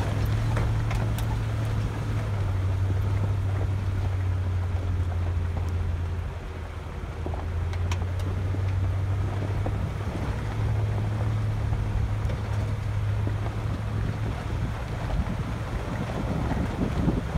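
Vehicle driving slowly over a rough gravel and rock dirt road: a steady low engine and tyre drone, with scattered ticks and crunches of gravel under the tyres.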